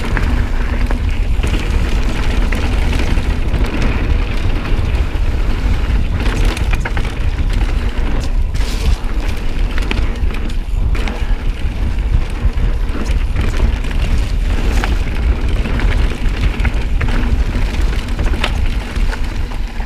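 Mountain bike ridden fast down a dirt trail: loud, steady wind rumble on the microphone with scattered clicks and knocks from the bike over rough ground.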